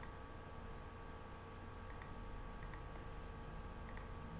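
Quiet room tone: a steady low electrical hum, with a few faint, brief clicks scattered through it.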